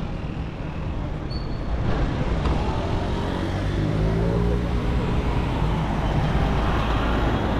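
A large vehicle running close by, its low motor rumble growing louder about two seconds in and then holding steady over the general traffic noise.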